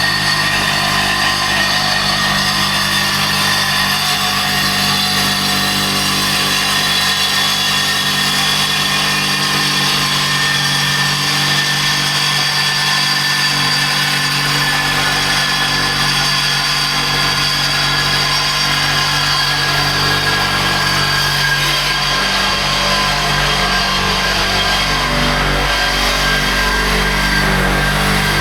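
A small motor, likely a power tool's, running continuously at a steady high pitch, its tone drifting slightly.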